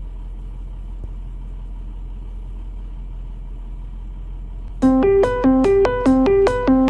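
A steady low background hum, then background music starts about five seconds in: a repeating melody of short keyboard notes, two to three a second.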